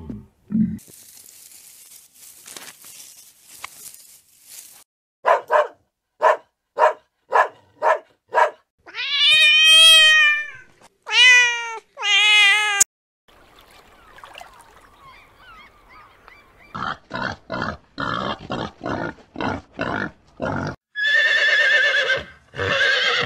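Several different animal calls in turn: a row of short, quick calls, then three longer pitched calls that rise and fall, then another row of short calls and a final long call near the end.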